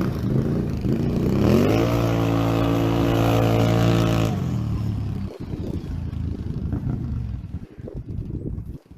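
Can-Am Outlander ATV engine through an MBRP slip-on exhaust, revving up over about a second, holding one steady high note for about three seconds, then dropping back off the throttle about halfway through to a lower, uneven running sound.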